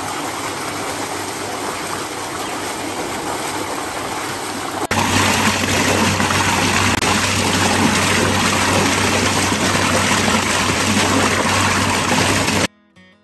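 Water cascading out of the basins of a biodynamic flow form and splashing into the tub below: a steady rushing splash with a low hum underneath. It gets louder about five seconds in and cuts off suddenly near the end.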